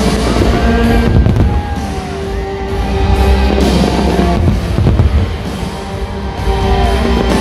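Loud music with held notes, with the bangs of fireworks shells bursting mixed in.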